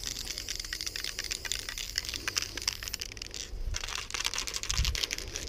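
Aerosol can of copper chrome spray paint (Kobra Krome) spraying through a level 1 skinny cap: a crackling hiss that breaks off briefly about three seconds in, then starts again. A few low thumps come near the end.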